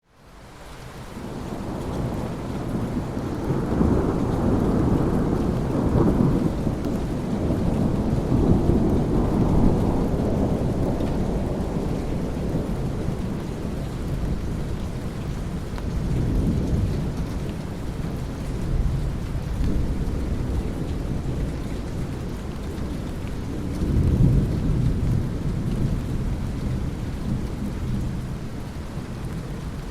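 Thunderstorm: steady rain with rolling thunder rumbling through it. The sound fades in at the start; the heaviest rumbles swell in the first ten seconds and again at about twenty-four seconds.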